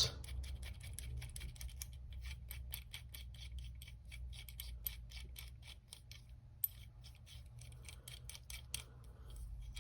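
Loose part of a stainless steel Protocol HammerPlus multitool being worked back and forth: a quick run of faint, light metal clicks, with a short break about six seconds in. The clicking comes from play in a joint that is loose as a goose.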